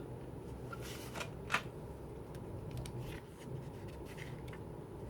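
Paper and card packaging of a CD album being handled while a photo card is worked loose: light rustling and a few small clicks, the sharpest about one and a half seconds in.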